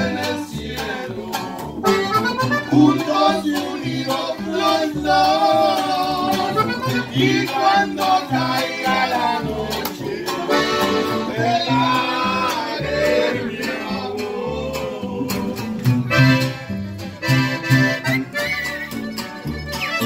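Live norteño trio playing: a button accordion carries the melody over a strummed acoustic guitar and a plucked upright bass keeping a steady beat.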